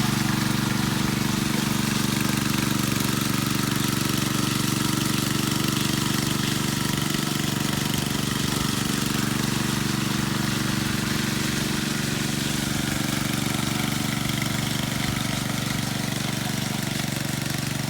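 Power trowel (helicopter) engine running steadily at a constant pitch while its blades work the concrete slab on the second trowelling pass.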